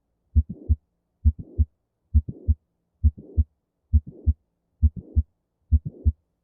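Heart sounds of mitral valve prolapse: a regular heartbeat of about seven beats, each a first and second heart sound with a faint mid-systolic click and a late systolic murmur that grows louder up to the second heart sound. The murmur comes from the prolapsing mitral valve leaflets, usually with regurgitation back into the left atrium.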